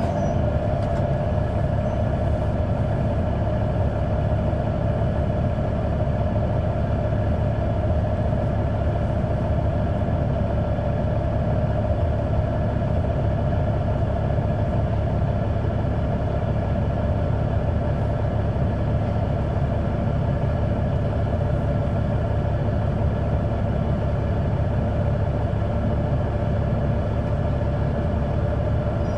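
Caterpillar C9 ACERT diesel engine of a 2004 Neoplan AN459 articulated bus, heard from on board, running steadily. A steady whine sits over the engine's low drone, with no change in pitch or level.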